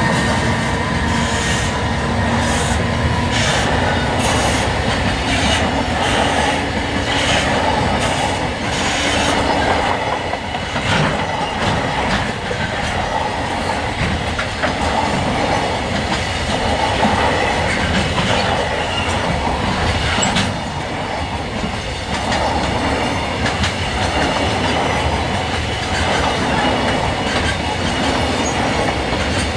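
A train running past at a level crossing, its wheels clacking rhythmically over the rail joints, with the clacks clearest in the first ten seconds or so.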